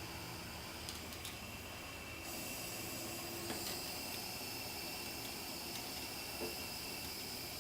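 Steady faint hiss with a few light clicks and taps from small handling of parts.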